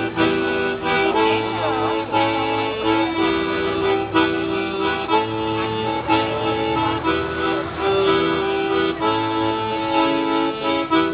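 Accordion-led forró music, with held accordion notes over a steady beat.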